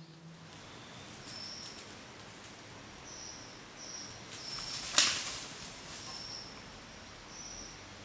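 Forest ambience: a low background hiss with short high chirps repeating every second or so, and a single sharp click about five seconds in, the loudest sound, with a brief crackle around it.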